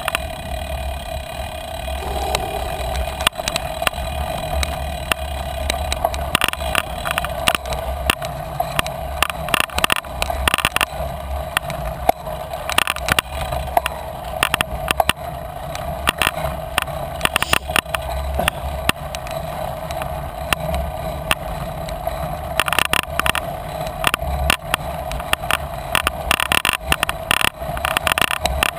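Bicycle ridden over a bumpy grass and dirt trail, heard from a camera mounted on the bike: a steady low rumble and a steady hum, broken by frequent short rattles and knocks as the bike goes over bumps.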